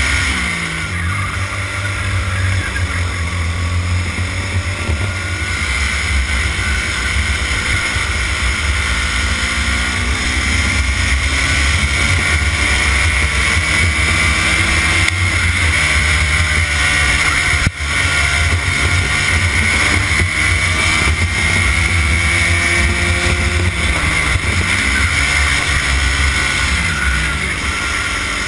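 Racing kart engine heard from on board, revving up and down through a qualifying lap: its note falls as the kart slows for a corner about a second in, climbs and holds high down the straight, and falls again for the corner near the end.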